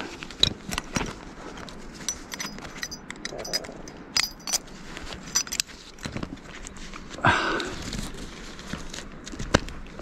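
A person moving and handling things on the forest floor: irregular snaps, knocks and rustles of twigs and leaves, with a few small metallic clinks near the middle and a short vocal sound, a grunt or exhale, about seven seconds in.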